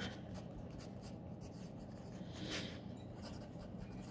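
Pen scribbling on paper: faint scratching strokes, with a small swell about two and a half seconds in, over a steady low hum.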